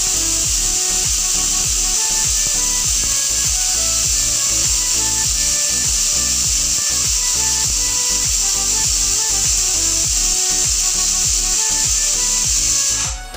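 Pressure cooker whistling: steam blasting out from under the weight valve in a steady, loud, high hiss, the third of the four whistles the cooking is timed by. It cuts off abruptly at the very end.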